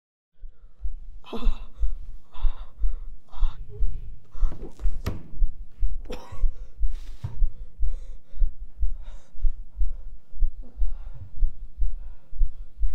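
A heartbeat sound effect beating steadily and low, with gasping breaths over it at irregular intervals: a sign of panic or stress. It starts suddenly about half a second in.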